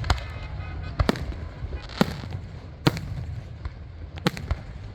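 Fireworks going off: about six sharp bangs at uneven intervals of roughly a second, two of them close together near the end.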